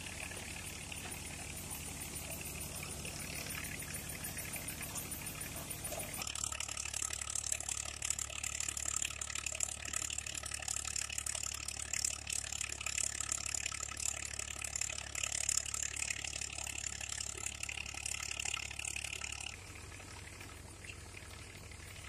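Tractor-driven grain thresher running: a steady low engine drone under a dense rushing hiss of straw and chaff being threshed and blown out. The sound shifts abruptly about six seconds in and again near the end.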